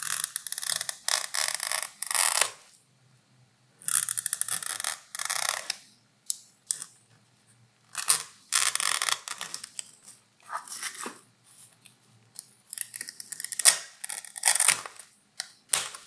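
A fabric product label being cut away from the edge of a nylon bag: noisy cutting strokes in spells of a second or two, separated by short pauses.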